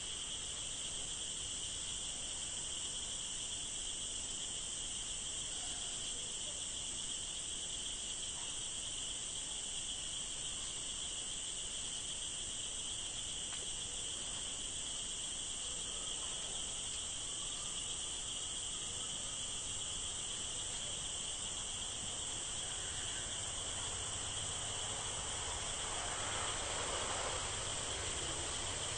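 Steady chorus of forest insects: a continuous high-pitched drone at two pitches, one above the other.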